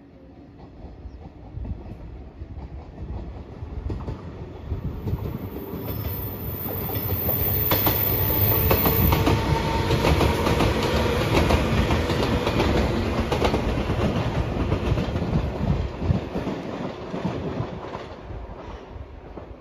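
JR 115-series electric train passing close by, its wheels clattering rhythmically over the rail joints. The sound builds over several seconds, is loudest midway as the cars go past, then fades as the train moves off.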